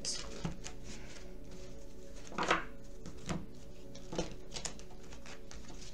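A deck of tarot cards being shuffled by hand, a stiff deck that is a little hard to shuffle: a few separate short slaps and riffles, the loudest about two and a half seconds in, over a faint steady hum.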